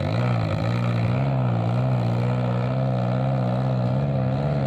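Engine of a small pickup truck loaded with cassava, labouring in low gear over a rutted dirt track, its engine speed rising and falling slightly as it lurches over the ruts.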